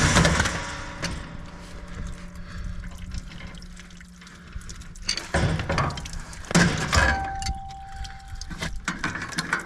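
Water splashing and dripping from the opened furnace plumbing, with clattering of metal fittings and tools as the circulator pump is removed; loud bursts of handling noise at the start and again about five and a half and seven seconds in.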